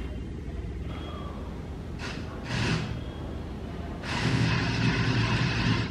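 Small electric motors of a hobby robot, its servo arm and geared drive, whirring in two bursts: a short one about two and a half seconds in and a longer, louder one from about four seconds in.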